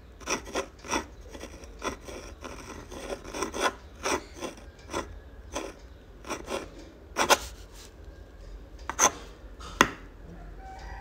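Uni-ball Fine rollerball pen scratching across textured sketch paper as a signature is written: a quick run of short strokes, with a few sharper ones about seven and nine seconds in.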